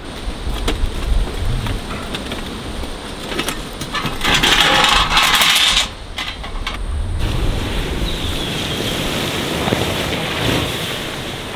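Ash and coals clatter as they are tipped out of a small metal fire pit onto the ground, with a loud rushing hiss for a couple of seconds midway. In the second half, water poured from a bucket over the hot coals hisses and sizzles steadily as it makes steam.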